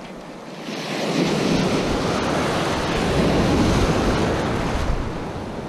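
Surf breaking and rushing around a wader's legs, swelling about a second in and easing off near the end, with wind buffeting the microphone.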